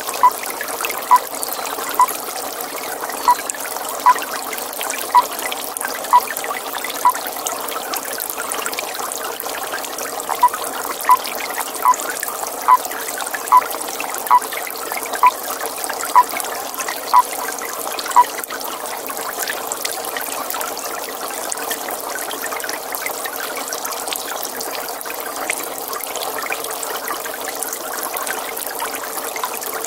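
Water trickling steadily, with a toad calling in short, clipped single notes about once a second. The calls stop about 7 seconds in, resume a few seconds later a little faster, and stop again a little past halfway, leaving only the trickle.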